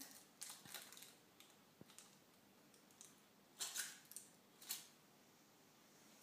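Faint crinkling of a foil-wrapped chocolate being unwrapped by hand, in a few short rustles.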